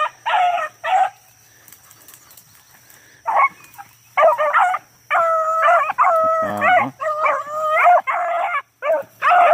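Hounds baying on a rabbit's trail: two short bays, a quiet pause of about two seconds, then bay after bay from about four seconds in as they give tongue on the scent.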